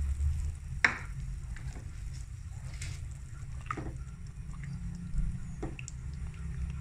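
Wooden spatula stirring a cornflour slurry into simmering soup in a steel pot, with a sharp knock about a second in and a few lighter knocks of the spatula against the pot, over a low steady hum.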